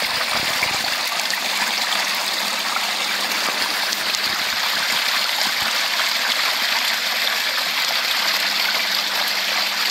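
A small forest brook spilling over a homemade wooden plank dam and splashing steadily into the pool below, heard close up.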